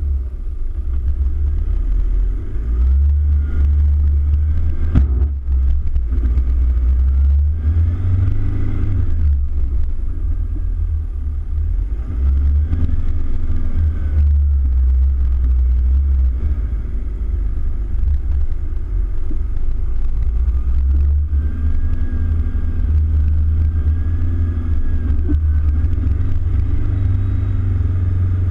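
Toyota Hilux Vigo driving through soft sand dunes, its engine note rising and falling as the revs change, over a heavy deep rumble.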